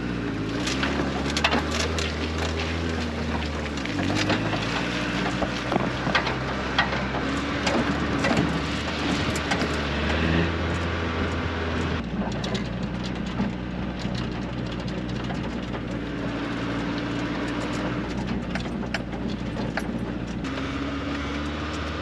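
Farm ute engine running as it drives slowly over a rough paddock, with frequent small rattles and knocks from the body. The engine note shifts a few times.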